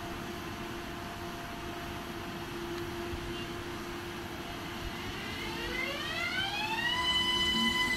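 ÖBB class 4746 Cityjet (Siemens Desiro ML) electric train humming steadily at a standstill. About five seconds in, its traction inverters start up with a whine that rises in pitch for about two seconds and then holds steady as the train starts to pull away.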